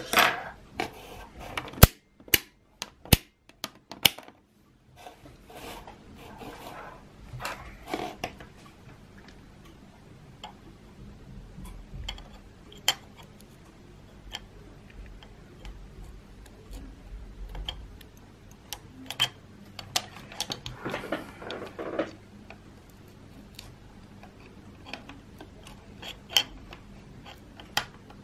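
Scattered sharp clicks and taps with a few short rustles: multimeter test probes and their leads being handled on a desk. A faint low hum runs underneath.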